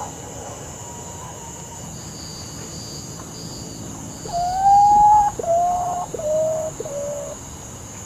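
Potoo singing: one long, slightly rising mournful whistle about four seconds in, followed by three shorter whistles, each a little lower in pitch.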